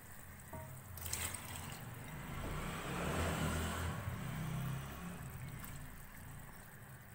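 Soaked chana dal (split chickpeas) poured into a pot of beef broth: a few clicks about a second in, then a pouring, splashing wash that swells around the middle and fades away.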